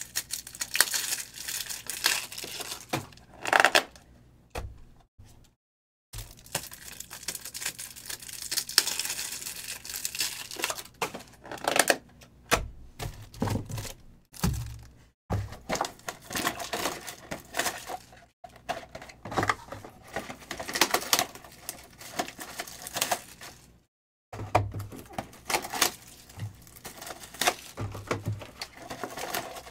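Irregular crinkling, rustling and tearing of plastic wrap and cardboard as sealed boxes of 2022 Select football cards are handled and opened by hand, with occasional knocks of boxes on the table. The sound cuts out briefly a few times.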